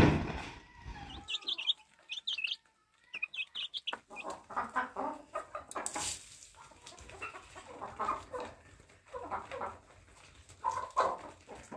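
Domestic hens clucking as they peck at scattered feed, with a short rush of grain falling onto them about six seconds in. A thump opens it, followed by a few high chirps before the clucking starts.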